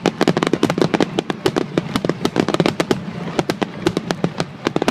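Fireworks display: a rapid, dense barrage of sharp bangs, several a second, with no pause.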